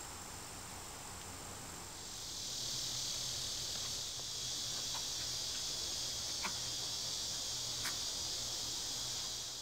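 Insect chorus: a steady, high-pitched shrill drone that swells about two seconds in, with a few faint short ticks over it.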